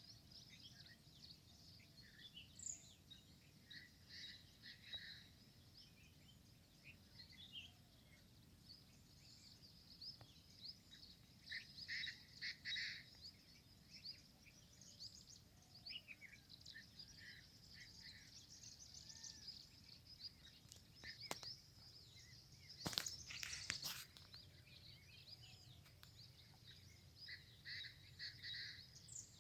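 Birds chirping and calling, many short high chirps scattered throughout over a faint low background noise. A few sharp clicks or knocks come about 21 and 23 seconds in, the loudest moments.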